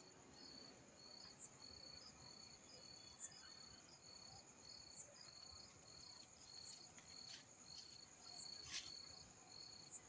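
Faint crickets chirping: one in a regular pulsed chirp of about two a second over another steady high trill, with a few faint short clicks scattered through.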